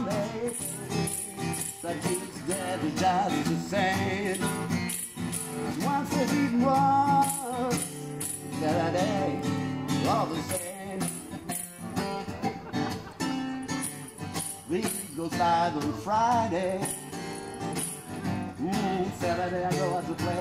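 Live folk song: strummed acoustic guitar with a wavering lead melody on top and a light jingling percussion beat.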